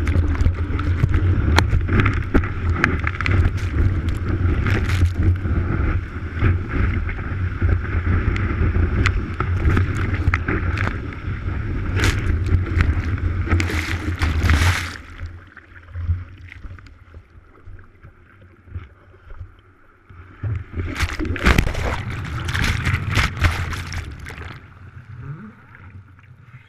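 Water rushing and splashing over a surfboard-mounted action camera as the board runs through whitewater, with a heavy low rumble of water and wind buffeting the microphone and many sharp crackles of spray. A little past halfway it drops suddenly to quieter sloshing and lapping, with another spell of loud splashing a few seconds later.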